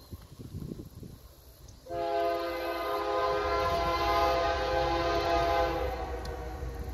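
Canadian Pacific freight locomotive's air horn sounding one long chord blast that starts abruptly about two seconds in, holds for about four seconds, then fades, over the low rumble of the approaching train.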